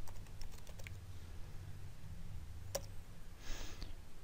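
Computer keyboard keys clicking softly as a few keys are typed, with one sharper key press a little before three seconds in, over a low steady hum.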